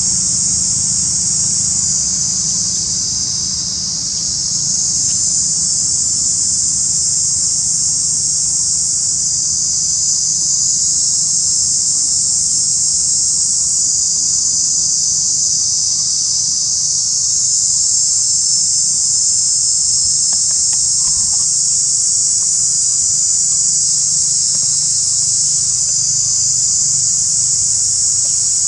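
Loud, steady chorus of insects: a continuous high-pitched buzz that swells and eases slowly, dipping briefly about four seconds in.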